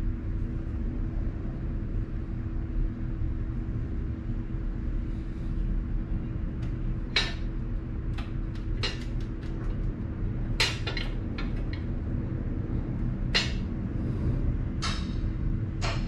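Metal parts clicking and clinking as a steel license plate bracket and plate are handled and fitted against a motorcycle's rear fender, in scattered short clicks from about seven seconds in. A steady low background hum with a faint constant tone runs underneath.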